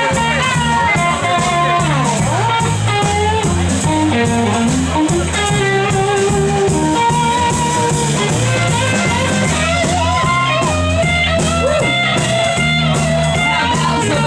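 Live band playing: a lead electric guitar line full of slides and bent notes over bass and a steady drum beat.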